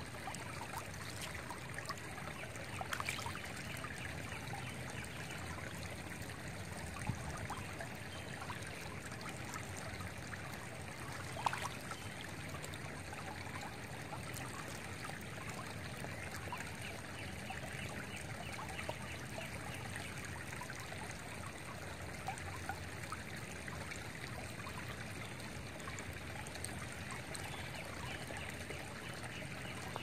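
Shallow, rocky creek flowing over stones, a steady babbling and trickling wash. A couple of brief, sharper sounds stand out, about three seconds in and again around a third of the way through.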